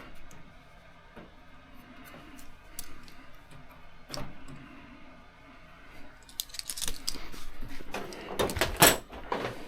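Small metal parts and hand tools clinking and rattling as they are handled: scattered light clicks at first, then a busier clatter from about six seconds in, loudest near the end.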